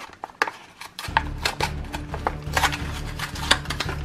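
Cardboard-and-plastic blister packaging of a toy car being torn and pried open: a run of irregular crackles, snaps and clicks. Low background music comes in about a second in.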